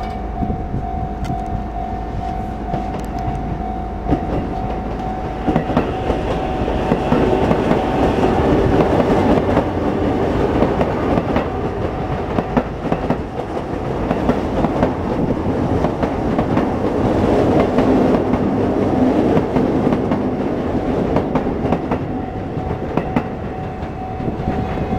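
Level crossing warning bell ringing as a steady, pulsing tone. About four seconds in, a Sotetsu 11000 series electric train passes over the crossing, its wheels clattering over the rail joints for nearly twenty seconds and drowning out the bell. The bell is heard ringing again near the end.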